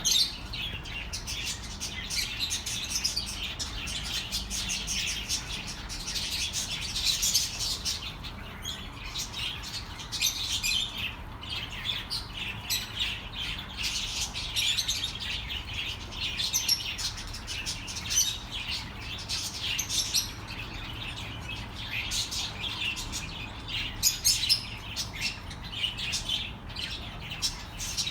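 Budgerigars chattering and warbling: a continuous stream of quick, high chirps and twitters with no pauses.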